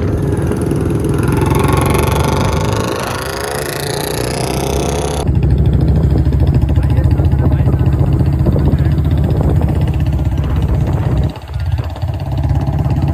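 Motorcycle riding on the road: engine running with heavy low wind rumble on the microphone. The sound changes abruptly about five seconds in and dips briefly near the end.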